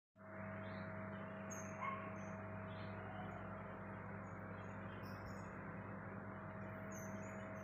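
Steady low hum and hiss of room tone, with a few faint, short, high chirps scattered through it.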